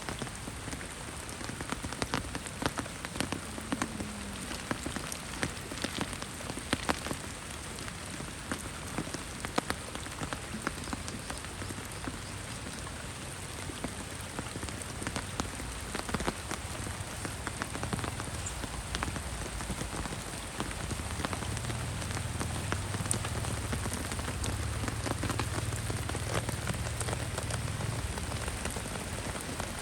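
Heavy rain falling steadily, with many sharp, separate drop hits spattering throughout. A low rumble comes in about two-thirds of the way through and grows slightly louder.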